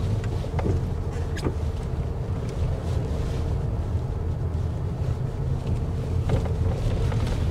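Car interior noise while driving slowly: a steady low rumble of engine and tyres, with a faint steady hum and a few light clicks.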